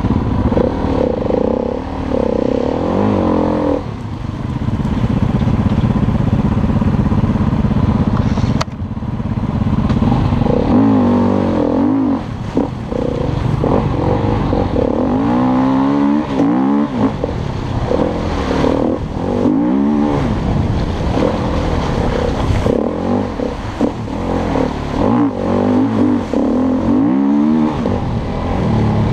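Single-cylinder four-stroke off-road engine revving hard in repeated throttle bursts, its note rising and falling with the gear changes, together with the clatter and scrape of mud and wet leaves thrown up by the tyres.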